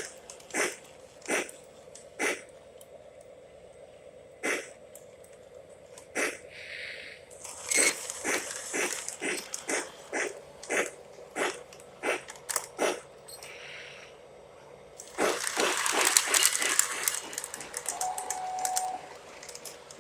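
Lionel O gauge model train getting under way: a string of sharp clicks and knocks, coming about two a second in the middle stretch, a louder hissing, clattering passage a few seconds before the end, and a short steady tone near the end.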